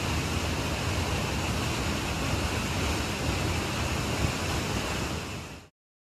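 Forest stream rushing over rocks, a steady water noise that fades out and cuts off just before the end.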